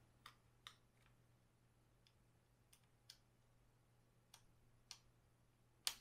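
Faint, irregular clicks of a small screwdriver turning the captive screws in a laptop's plastic bottom panel, about nine in all, with a sharper click near the end.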